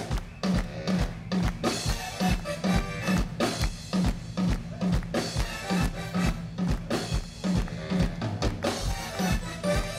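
Live funk band playing loud through a stage PA: drum kit keeping a steady beat of about two kick-drum hits a second with snare, over a repeating bass-guitar line.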